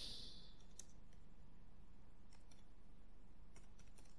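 Faint keystrokes on a computer keyboard: a few scattered taps about a second apart, some in quick pairs, over low steady room noise.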